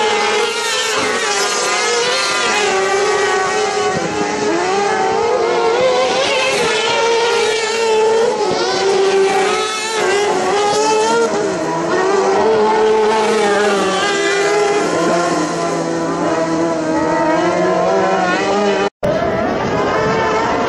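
Several kartcross buggies' high-revving motorcycle engines racing on a dirt track. The engines overlap, and their pitch rises and falls with throttle and gear changes as the cars pass. Near the end the sound cuts out for an instant and comes back.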